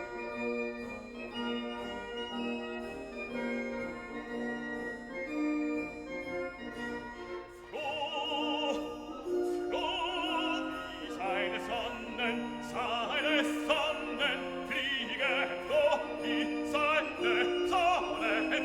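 Music: held accompaniment notes, then a singing voice with strong vibrato comes in about eight seconds in, in a classical, operatic style.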